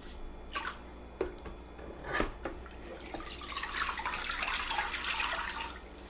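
Water in a spin-mop bucket: a microfiber mop head sloshed in the water with a few short splashes. Then, for the last few seconds, a steady stream of water pours and drips off the lifted mop head back into the bucket.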